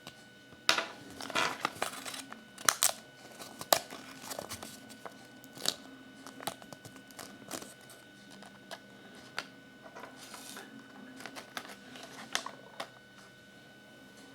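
Crinkly wrapper being handled and crumpled, with irregular crackles and sharp clicks, busiest in the first few seconds.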